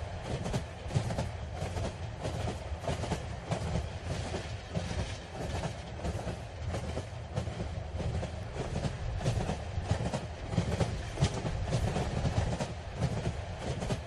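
Mugunghwa-ho passenger train running at speed, heard from inside the carriage: a steady low rumble with a rapid, uneven clatter of wheels on the rails.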